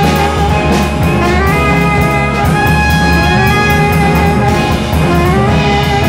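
Ensemble of tenor saxophone, trumpet and trombone with violins, viola, cello, piano, bass and drums playing a jazz piece, the horns carrying moving lines over the strings and a steady drum beat.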